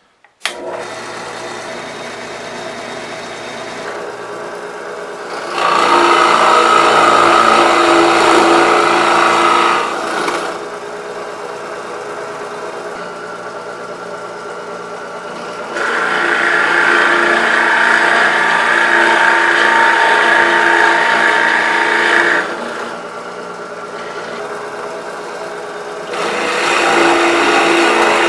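A motor or engine running steadily, stepping up abruptly to a louder, higher-pitched level three times and back down between.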